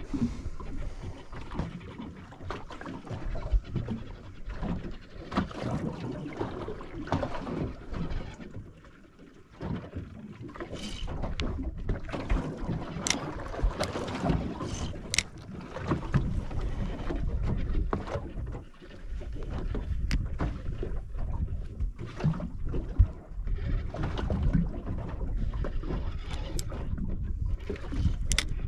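Water lapping against the hull of a drifting boat, with uneven wind buffeting the microphone. A few sharp clicks stand out near the middle and again near the end.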